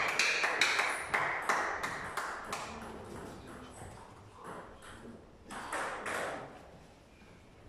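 A table tennis ball bouncing repeatedly with sharp pings, about three bounces a second, fading away over the first three seconds. A few faint scattered knocks follow.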